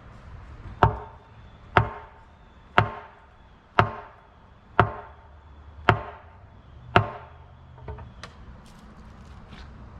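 Heavy hammer blows on a concrete catch basin wall, knocking at a circle perforated with drilled holes to break it out for a pipe. Seven sharp strikes come about a second apart, followed by a few lighter taps near the end.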